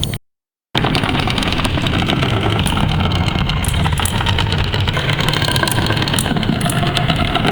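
AI-generated sound from the Stable Audio Open model: after half a second of silence a new clip starts abruptly, a dense, rough, steady rumbling noise that resembles a running engine.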